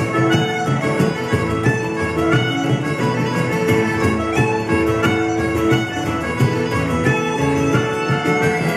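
Live Irish traditional tune played on concertina with bodhrán accompaniment and other instruments, in a quick, even rhythm over steady held notes.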